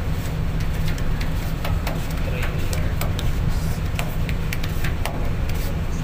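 Steady low rumble aboard a roll-on/roll-off ferry under way, with scattered light clicks and taps.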